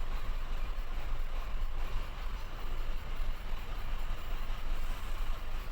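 Car engine idling roughly and unevenly with a misfire, one cylinder (number 4) dead from lost compression.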